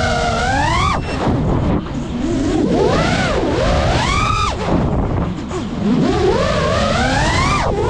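Brushless motors and propellers of a GEPRC Mark 5 five-inch FPV quadcopter whining in flight. The pitch climbs and falls with the throttle, and each long rise cuts off in a sudden drop, about one, four and a half and seven and a half seconds in.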